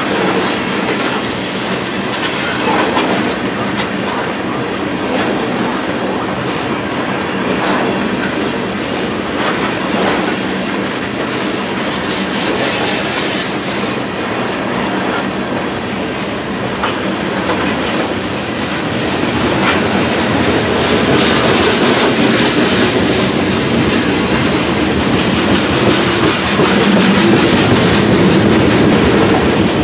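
Freight train of tank cars rolling past: a steady rumble of steel wheels on rail, with clacking as the wheels cross rail joints. It grows a little louder about two-thirds of the way through.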